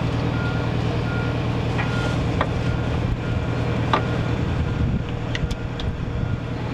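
An engine runs steadily while a backup alarm beeps about once every 0.7 s through the first half, with a few sharp metallic clicks as a hydraulic quick-coupler is pushed on and snaps into place.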